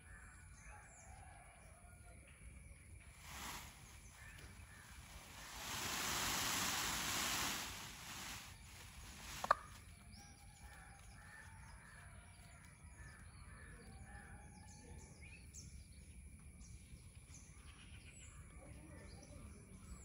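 Quiet outdoor ambience with faint, scattered bird calls. About a third of the way in, a rustling hiss swells for two or three seconds, and a single sharp click follows shortly after.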